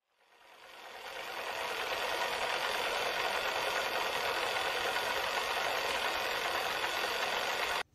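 A steady rushing noise fades in over about two seconds, holds at an even level and cuts off abruptly near the end.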